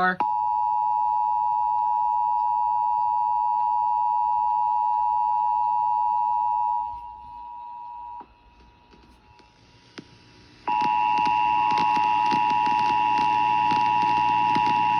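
Emergency Alert System attention signal: the two-tone alert (853 Hz and 960 Hz sounded together), steady and loud. It sounds for about seven seconds, fades to a much quieter stretch, and comes back about ten and a half seconds in, this time with hiss and crackle under it.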